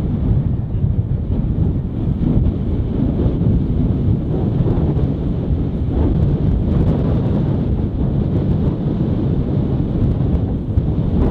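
Wind buffeting the microphone: a steady, loud low rumble that swells and eases.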